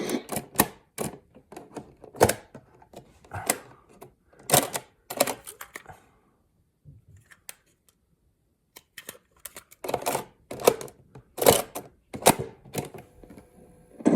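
Plastic cassette deck of a Soundesign clock radio clicking and clacking as a tape is loaded and its keys are pressed: irregular sharp clicks, a pause of about three seconds midway, then more clicks.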